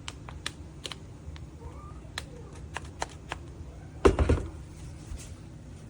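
Light scattered clicks and plastic handling noises from a cordless impact wrench and its battery pack being handled, with a louder knock and rattle about four seconds in, over a steady low hum.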